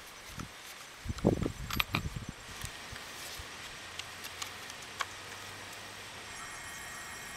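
Light metal clicks and taps from a screwdriver and gloved hands handling an electric pole saw's chain and bar, with a soft thump about a second in.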